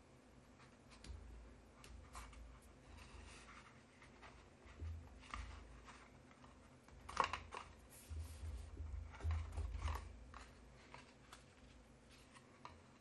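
Hands pressing and smoothing a paper panel down onto a folded card stock card on a table: soft paper rustles, scattered light taps and clicks, and dull thumps as the palms press down. The sharpest click comes about seven seconds in.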